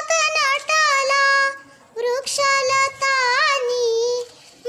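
A young girl singing a Marathi song in a high voice, in long phrases with ornamented pitch bends. She breaks briefly for breath about two seconds in and again near the end.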